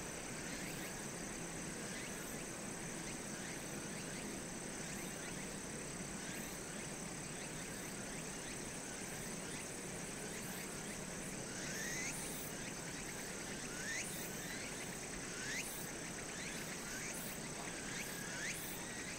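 Faint outdoor ambience of insects and frogs: a steady high-pitched insect trill, with short chirping calls repeating more often in the second half.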